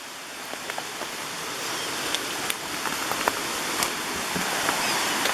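Roar of a high, fast-running stream: a steady rush of water that grows gradually louder.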